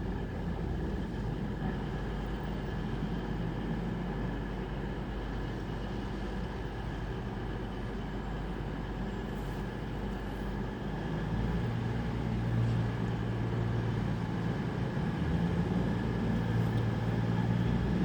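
Passenger train at the platform with a steady mechanical hum and whine, which grows louder in the second half as it pulls away.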